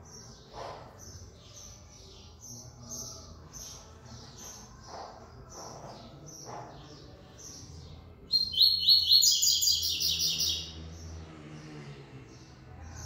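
Caged double-collared seedeater (coleiro) singing: a run of short, high chirped notes, then about eight seconds in a loud, fast trill lasting roughly two seconds, the loudest part.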